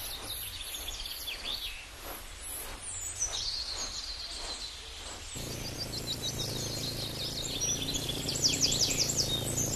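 Small birds chirping and trilling over a steady background hiss. About five seconds in, the background noise grows louder, and near the end there is a quick run of high falling notes.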